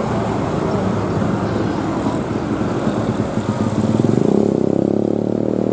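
Tour bus diesel engine pulling up a climb under load, its rumble growing louder and higher in pitch about three and a half seconds in.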